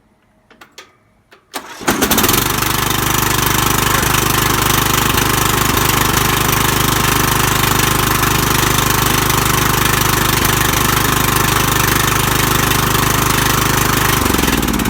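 2001 Lawn Chief riding mower's engine starting on the key with a newly fitted ignition switch: it catches about two seconds in and runs steadily, then winds down as it is shut off near the end.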